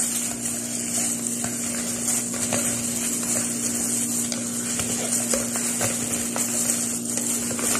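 Gloved hands squeezing juice out of cut citrus pulp into a glass bowl: soft, irregular squishing with small clicks, over a steady low hum.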